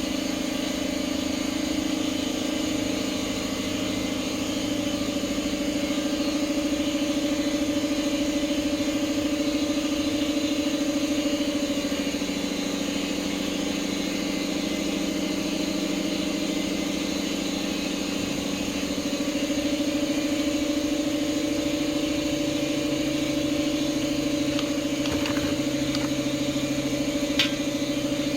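A steady mechanical drone, like a motor or engine running, holding one pitch and shifting slightly about twelve and nineteen seconds in. A few light clicks come near the end.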